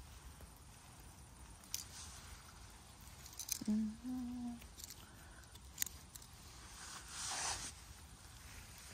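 Gloved hand rustling through moss and grass while picking chanterelle mushrooms, with a few light clicks and snaps. About four seconds in, the picker gives a short two-note hum, and near the end there is a louder rustle as the mushrooms come up out of the moss.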